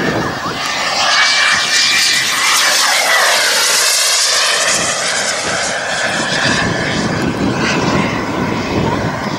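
Yellow Predator radio-controlled model jet flying a pass overhead, its engine whine dropping in pitch about three to four seconds in as it goes by.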